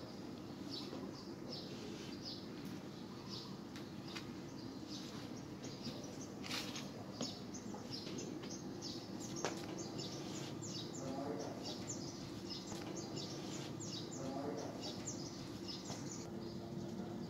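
Small birds chirping: short high chirps, about one or two a second, growing busier toward the end, over a steady low background hum.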